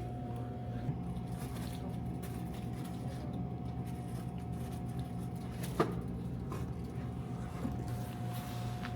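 Steady electrical machine hum with a faint high whine held at one pitch, and a single sharp click about six seconds in.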